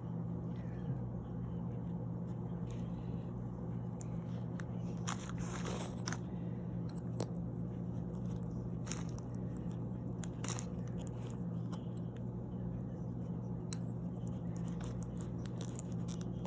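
Small plastic figure parts and packaging being handled: scattered clicks and crinkles, busiest about five to six seconds in, over a steady low hum.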